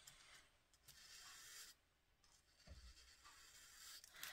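Faint strokes of a flat paintbrush brushing acrylic paint onto the base of a small birdhouse, with a soft knock a little under three seconds in; otherwise near silence.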